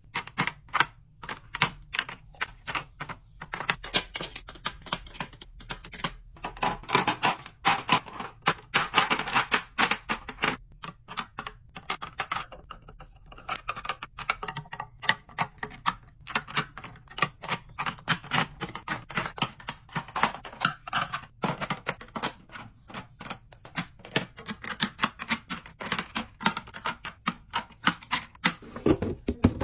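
Plastic cosmetic packaging (blush and bronzer sticks, small compacts) clicking and clacking as it is set down and arranged in clear acrylic organizer trays: many small sharp taps in quick, irregular succession.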